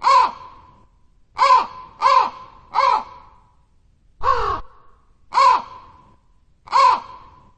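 Crow cawing: seven short, harsh caws at an uneven pace, the fifth one longer and lower than the rest.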